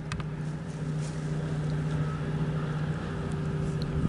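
An engine running steadily with an unchanging low hum, with a few faint clicks at the very start.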